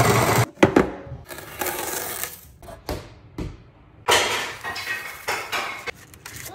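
A Capresso burr coffee grinder runs for about the first half-second, then comes a run of clinks, knocks and rattles of kitchen things being handled.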